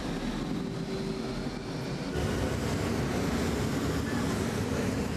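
Metro train running through an underground station: a steady rush of noise over a deep rumble, the rumble growing heavier about two seconds in.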